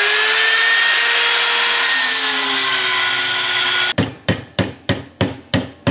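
Angle grinder cutting quarter-inch steel rod, a steady whine that sags a little in pitch under load, cut off abruptly about four seconds in. Then a hammer strikes steel rod on a bench vise about three times a second, bending it into meat hooks.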